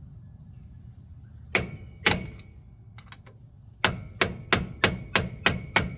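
Hammer blows on a metal tool being driven against a stuck part: two separate strikes, then a steady run of about three strikes a second starting near the end, with a faint metallic ring.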